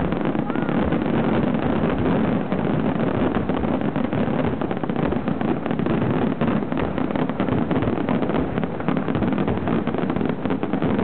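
Fireworks barrage: many aerial shells launching and bursting in quick succession, the bangs and crackle running together into one continuous, unbroken din.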